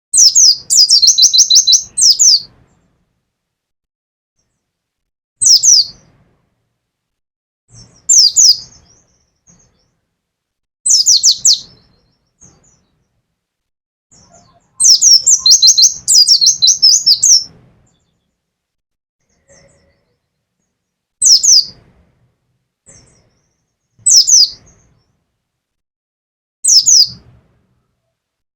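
White-eye (pleci) songbird singing in short, loud bursts of rapid, high, falling chirps. There are about eight bursts with quiet gaps of a few seconds between them; the longest come at the start and in the middle.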